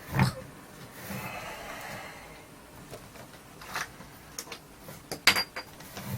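Plastic casing of a wireless speaker being handled: a knock just after the start, a short scrape, then a few sharp clicks and taps towards the end.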